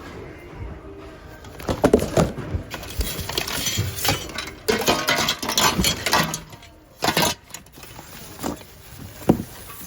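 Rummaging through a bin of mixed secondhand goods: items clatter, knock and rustle against each other as they are pushed around. The clatter is densest for a few seconds after the start, followed by a couple of separate sharp knocks near the end.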